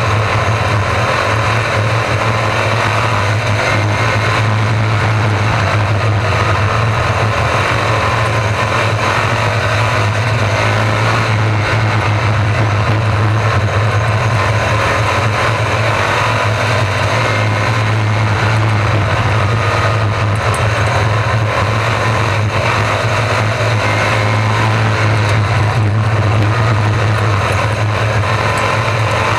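RaceSaver sprint cars' 305 small-block V8 engines running together on a dirt oval during a race, a loud steady engine noise with no clear single rev-up or let-off.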